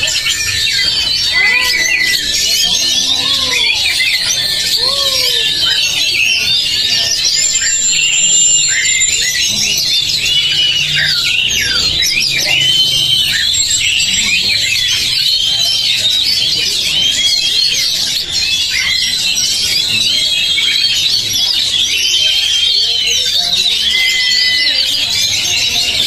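Many caged oriental magpie-robins singing at once: a dense, steady chorus of overlapping whistled phrases and chattering notes. Lower rising-and-falling calls join in during the first few seconds.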